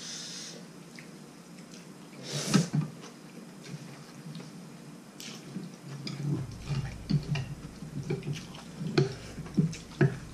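Noodles being slurped from a bowl of noodle soup with chopsticks. There is one loud slurp about two and a half seconds in, then from about six seconds a quick uneven run of short wet slurps and smacks.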